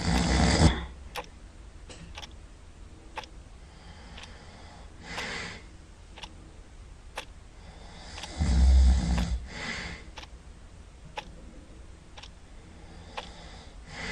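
Someone asleep and snoring loudly: a loud snore at the start and another about eight seconds in, with softer snores between. A faint sharp tick comes about once a second.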